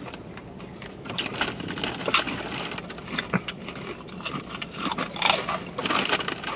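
Crunching of Flamin' Hot Doritos tortilla chips being chewed: irregular, crisp crackles that start about a second in and come thick and fast, with a couple of louder crunches near the end.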